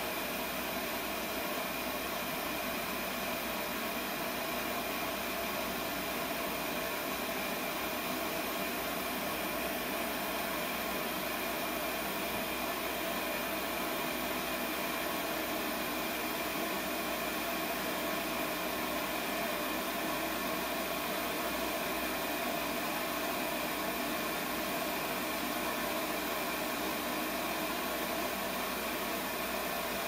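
Steady hiss of a Lopet propane bench torch burning with a focused flame.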